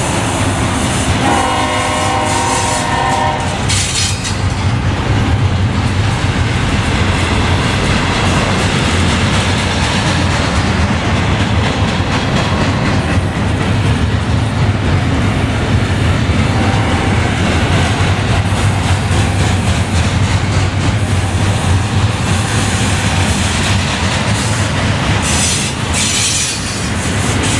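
Union Pacific double-stack container cars rolling past close by: a steady, loud rumble of wheels on rail. A short pitched tone sounds about a second in and lasts about two seconds.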